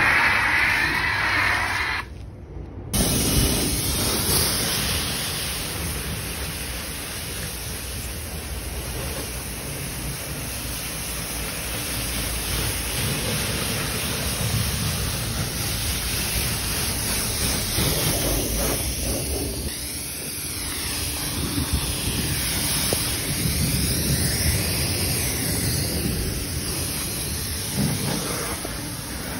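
Pressure washer spraying, its jet hissing steadily on the car's bodywork as it rinses off the snow foam, with a brief drop in the sound a little over two seconds in.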